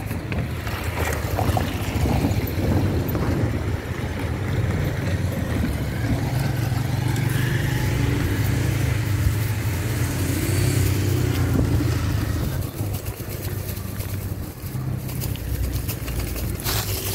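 Road traffic going by on a street: car engines and tyres, with one engine's pitch sweeping up and down about ten seconds in.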